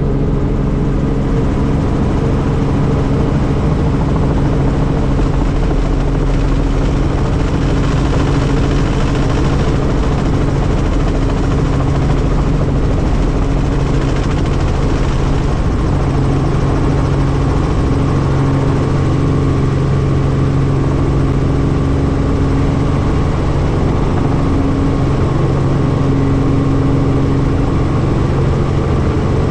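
Helicopter engine and rotors running steadily: a constant hum with a wash of noise that does not change.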